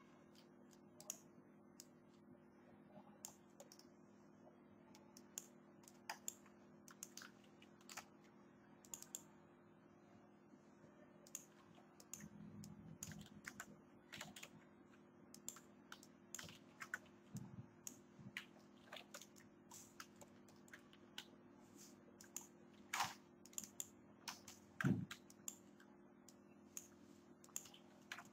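Faint, irregular clicking of computer keys and mouse buttons, several clicks a second in places, with one heavier knock near the end. A steady low hum lies under it.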